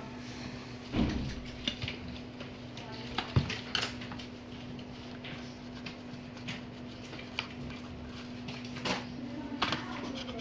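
Scattered clicks and light knocks from a laptop motherboard being handled and worked on by hand on a bench, over a steady low electrical hum.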